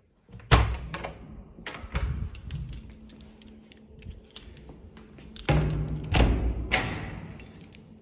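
A series of knocks and clattering handling noises, the loudest group a little after the middle.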